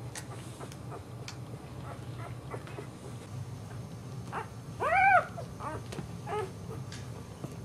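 A newborn boxer puppy whimpering: one loud, high squeal that rises and falls about five seconds in, with a few shorter whimpers just before and after it.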